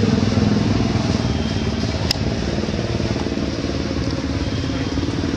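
An engine running steadily, a continuous low rumble.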